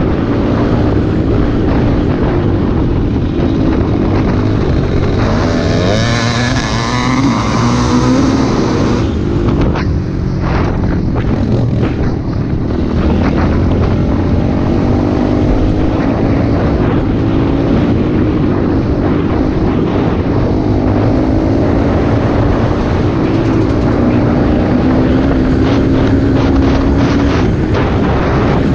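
Engine of a small off-road trail machine running under throttle, heard from the rider's own vehicle. Its pitch climbs as it revs up about six seconds in, then wavers up and down with the throttle.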